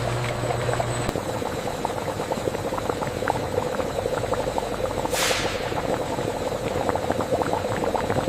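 Sugarcane juice boiling in an open pan during jaggery making, with many small bubbling pops over a steady hum. A falling whoosh comes about five seconds in.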